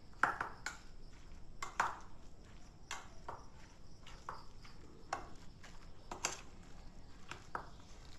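Steel spoon stirring a thick grated-potato batter in a stainless steel bowl, with irregular clinks and scrapes of metal on metal.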